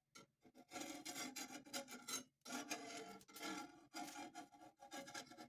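A utensil scraping across the surface of a cast iron dosa tawa in a series of short, quiet strokes.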